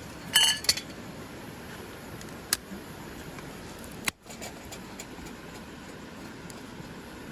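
Metal camp gear clinking: a short ringing jangle, then two sharp single clicks, over the steady rush of a river.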